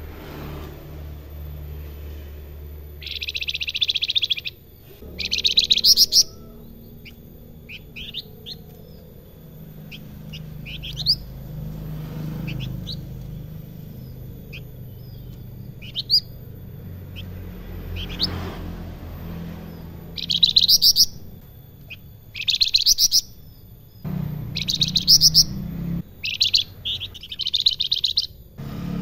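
Caged flamboyan (salakan) songbird singing: loud bursts of fast, rattling 'besetan' chatter, six of them, with single quick rising whistle notes ('sulingan') in the quieter gap between about 7 and 18 seconds.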